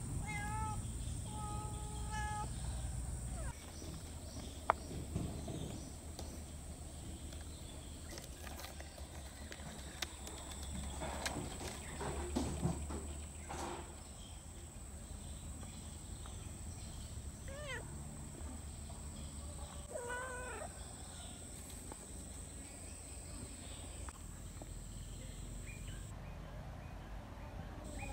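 Domestic cat meowing: a few short meows near the start and a couple more about two-thirds of the way through, over a steady high-pitched whine.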